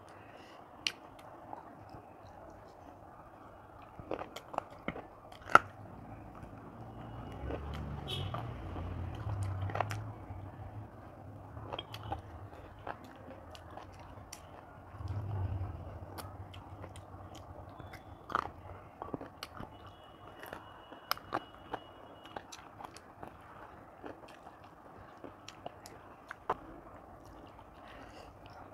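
A person eating rice and chicken curry by hand, heard close up: chewing and biting with many scattered sharp clicks and light crunches, plus a couple of longer low rumbling stretches, one about a third of the way in and one about halfway.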